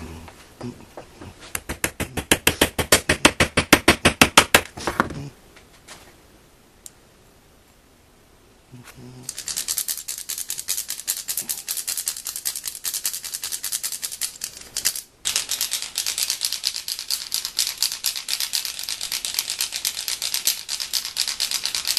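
Stick rubbed rapidly back and forth over the notches of a wooden magic-propeller wand, giving a fast rattle of clicks. It comes in two runs: a few seconds near the start, then a longer stretch from about nine seconds in, with a brief break in the middle.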